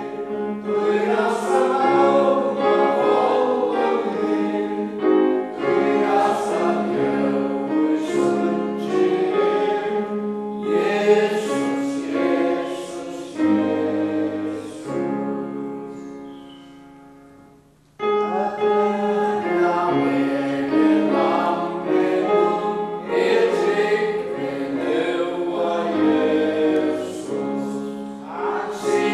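A congregation singing a Faroese hymn together. The refrain ends on a held note that fades out about two-thirds of the way through, and after a brief pause the next verse starts.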